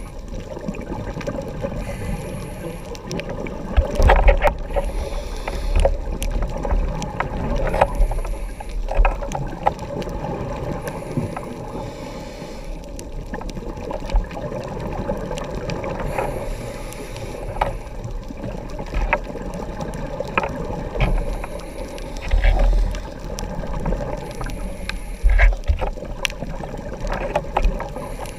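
Muffled underwater noise of a scuba dive recorded through a camera housing, with louder gurgling surges of exhaled regulator bubbles every few seconds and scattered sharp clicks.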